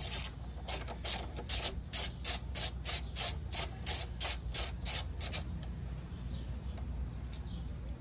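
A ratchet driver with a hex bit clicks rapidly, about four to five clicks a second, as a 5 mm Allen caliper mounting bolt is spun out. The clicking stops about five and a half seconds in, with a few faint clicks after.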